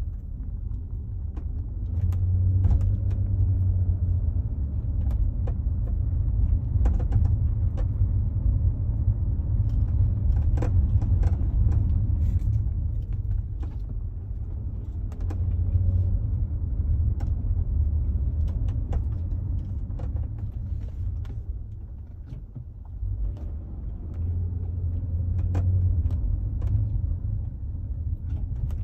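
Nissan Murano (Z52) under way: a steady low rumble, with short squeaks and creaks coming at irregular intervals through the whole stretch.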